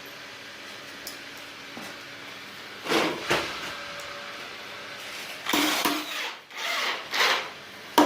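Carpenter's hand tool working wood: several short scraping strokes, coming irregularly from about three seconds in, over faint steady background noise.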